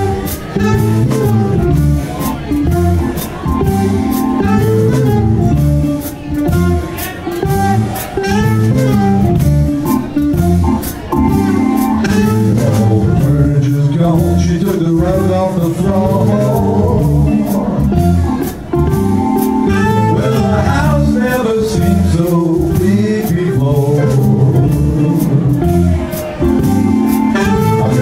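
Live blues band playing a real slow blues number, with electric guitar, electric bass, saxophone and drums.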